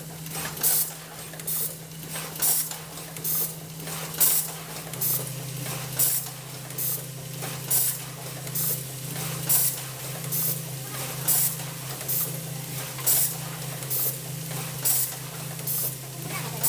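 MCB (circuit breaker) automatic assembly machine running: short, sharp hisses of exhaust air from its pneumatic cylinders, about once a second, over a steady low machine hum.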